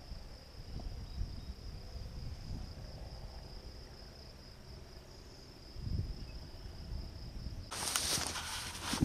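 A steady, high, thin insect drone over low, uneven rumbling. A dull thump comes about six seconds in, and near the end a louder hiss full of rustling clicks takes over.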